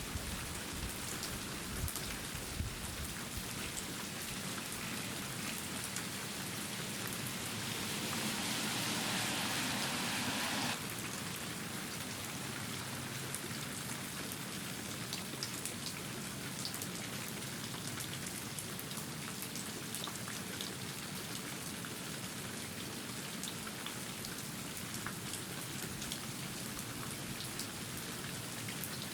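Steady rain falling on a surface, with many individual drop hits heard among the hiss. About eight seconds in the rain grows heavier for a few seconds, then drops back suddenly.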